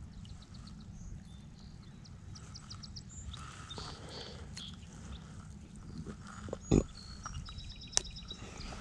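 Low rumbling wind and clothing noise on a chest-worn action camera's microphone while tangled monofilament fishing line is picked apart by hand. A few faint runs of rapid high ticks come through, and there are two sharp knocks near the end.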